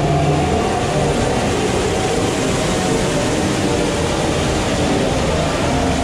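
Log flume ride in motion: a steady, even rumble of water running through the trough and the ride's machinery.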